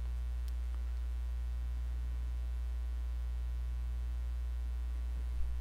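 Steady low electrical hum in the recording, mains hum with a ladder of overtones, with a faint click about half a second in.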